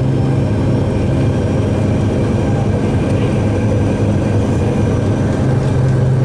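Heavy truck's engine running steadily while driving, heard inside the cab as a loud low drone over road noise.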